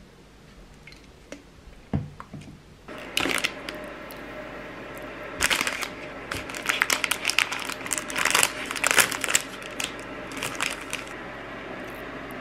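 Thin plastic wrapper of an individually packed oatmeal scone crinkled and torn open by hand, a run of sharp crackles starting about three seconds in and busiest in the middle. A single thump just before the crinkling starts.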